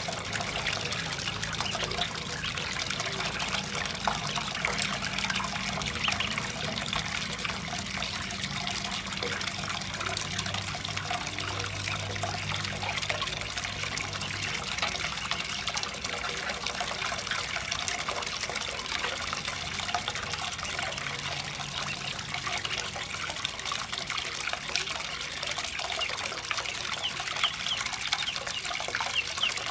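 Water pouring steadily from a pipe into a metal basin of water, splashing without a break.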